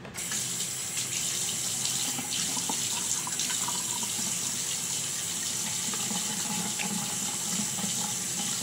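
Bathroom sink tap turned on at the start and running steadily, with small splashes as water is scooped onto a face by hand.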